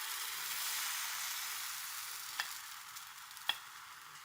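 Thin crêpe batter sizzling in a hot, lightly oiled frying pan just after being ladled in, the hiss slowly dying down as the batter sets. Two faint clicks come in the second half.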